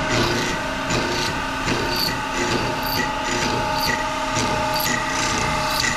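Vertical milling machine cutting a metal workpiece held in a vise: a steady whine of the motor and spindle with irregular sharp metallic ticks from the cut.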